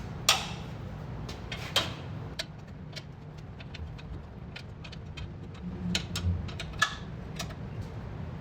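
Scattered metallic clicks and clinks from work on the brake line fittings, with sharper knocks about a quarter second in, near two seconds and near seven seconds, over a steady low hum.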